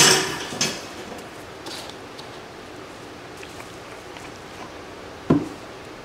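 Handling noise: brief rustles as a plastic bottle and a plastic bag are handled, then a steady quiet hiss, and a single sharp knock a little after five seconds in.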